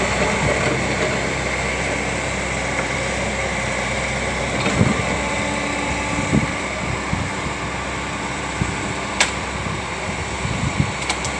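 Engine of an Atlas machine fitted with a Schnittgriffy tree shear, running steadily with a faint high whine. A few knocks and clicks sound over it, the sharpest about nine seconds in.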